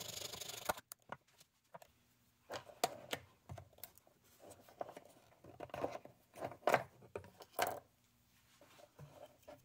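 A blade scraping back and forth through the headphones' hard plastic hinge piece, stopping just under a second in. Then a string of irregular small clicks, snaps and short scrapes as the cut plastic piece is worked free of the headband.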